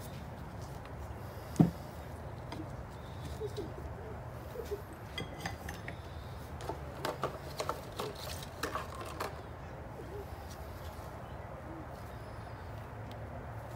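Light clicks and clinks of metal differential parts (bearings, seals and the case cover) being handled on a workbench, with one sharper knock about a second and a half in, over a steady low hum.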